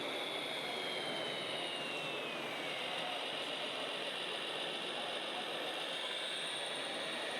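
High whine of an RC model vehicle's electric drive over a steady mechanical hiss. The whine falls in pitch about one to three seconds in, as the motor slows, and climbs again near the end.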